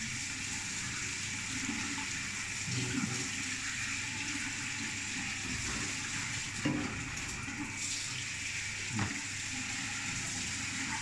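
Water sloshing and dripping as hands wash squid in a steel tray of water and lift them into a plastic tub, over a steady watery hiss. There are a couple of soft knocks in the second half.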